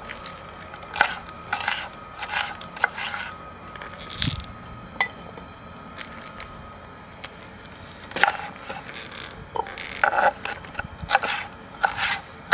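Kitchen knife slicing bell peppers into strips on a wooden cutting board. There are a few sharp cuts in the first three seconds, a pause, then a quicker run of chops over the last four seconds.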